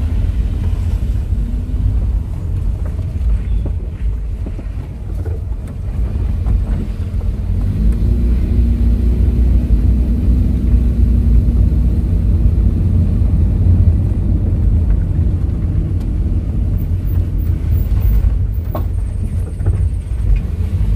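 Steady low rumble of a car's engine and tyres heard from inside the cabin while driving on a wet, potholed road, with a faint engine tone joining about eight seconds in and a brief knock near the end.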